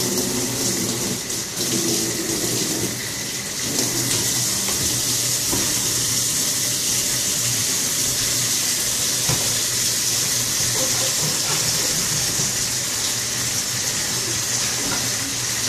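Kitchen tap running steadily, its stream pouring into and through a clear plastic protein-skimmer tube held over a stainless steel sink.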